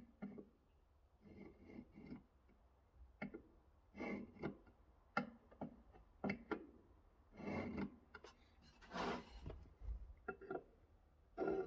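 A dozen or so short scratches and light clicks of hand marking-out tools on small metal parts, a scribe drawn along the metal and a vernier caliper being set, with a slightly longer scrape about nine seconds in.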